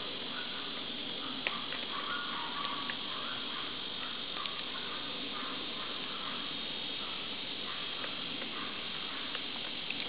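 Steady high-pitched drone of insects, with a few sharp taps scattered through it, the loudest about a second and a half in, from pileated woodpeckers pecking at rotten bark.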